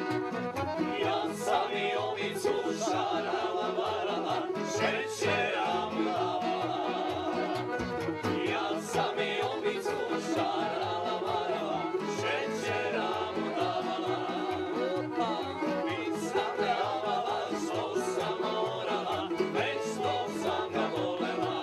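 Background music with a steady beat, led by plucked string instruments in a country or bluegrass style.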